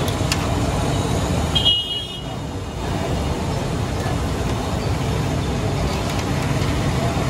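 Steady street traffic noise with a short, high horn toot about a second and a half in, mixed with the sizzle of bondas deep-frying in a large wok of oil.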